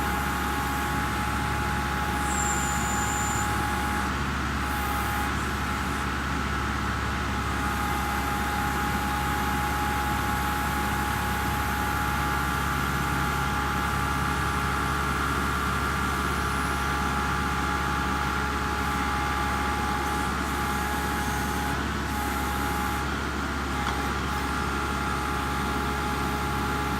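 Kubota MX5800 tractor's diesel engine running steadily under work, with a steady whine over the engine drone.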